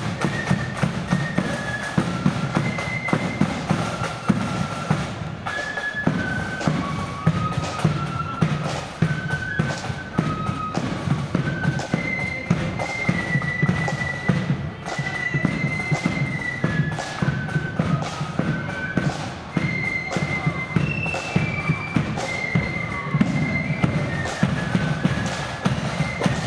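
Blood-and-thunder flute band marching and playing a tune: a high flute melody over rapid, busy drumming with a heavy bass drum beat.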